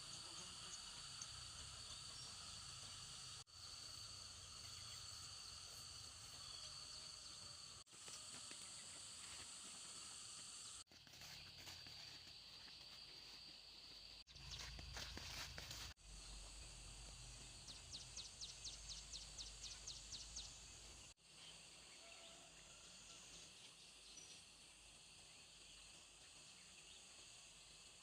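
Faint outdoor ambience of insects chirring steadily at a high pitch, broken off abruptly several times. About two-thirds of the way through comes a short run of quick repeated chirps, around five a second.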